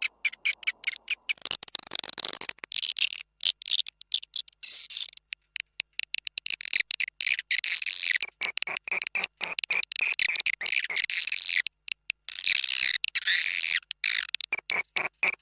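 Swiftlet lure call: fast, high-pitched chattering chirps of edible-nest swiftlets, broken by many short gaps, a recording played to draw swiftlets during the breeding season.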